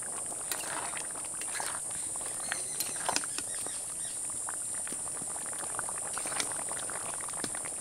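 Steady high-pitched chirping of insects, with soft bubbling and scattered light clicks from a covered pot of curry simmering.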